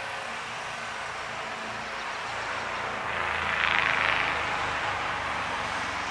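Powered yard-work equipment running: a steady motor drone under a hissing rush that swells louder about three and a half seconds in, then eases back.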